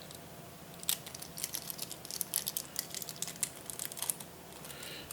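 Sellotape being handled and pressed down by hand: a run of small crackles and clicks, starting about a second in and stopping about a second before the end.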